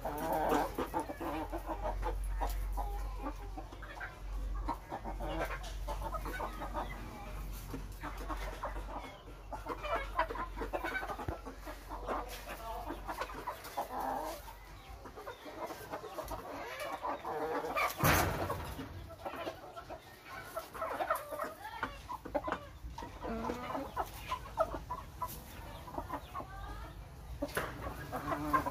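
Chickens, a gamecock rooster and hens, clucking in a steady run of short calls, with one sharp knock about two-thirds of the way through.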